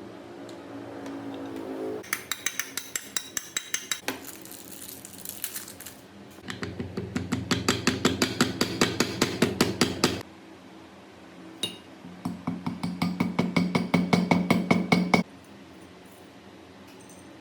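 Rapid metallic tapping on metal, about five or six strikes a second, in three bursts of a few seconds each, with a low steady tone under the strikes.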